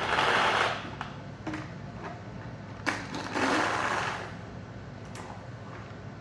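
Paintballs pouring from a 3D-printed pod filler into a paintball pod in two short rattling rushes, each about a second long, with a couple of sharp plastic clicks between them from the slide mechanism.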